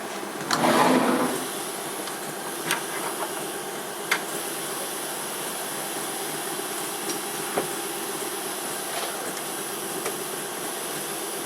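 Emco F1 CNC milling machine idling between operations: a steady hiss, with a short loud rushing burst about half a second in and a few sharp clicks scattered through.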